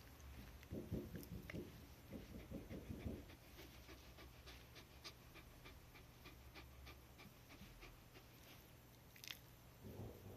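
Black Shiba Inu panting in short, quick breaths, about three a second, with a few heavier breaths in the first three seconds; the dog is frightened of nearby construction noise.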